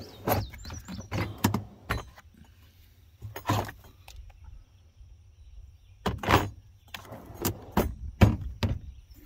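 Milwaukee Packout plastic tool-box drawers being handled, pulled and pushed: a string of separate knocks and clunks, the loudest about six and eight seconds in.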